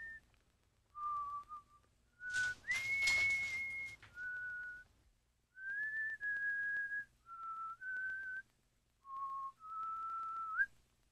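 Someone whistling a slow tune in single clear notes, each held for about half a second to a second, with short gaps between. A burst of rustling, rattling noise comes in about two seconds in and lasts under two seconds, under one long note.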